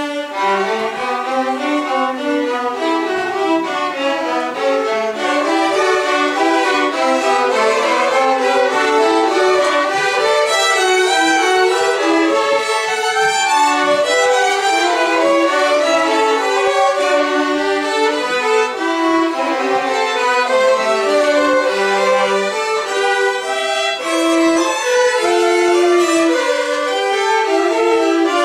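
A small ensemble of violins playing a gavotte together, a continuous run of short bowed notes.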